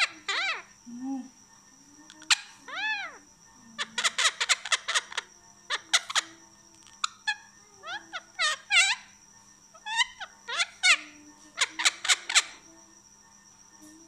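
Indian ringneck parrot giving soft chirps and short whistles, some rising and falling in pitch, with quick clicky runs of calls several times, over a steady high-pitched whine.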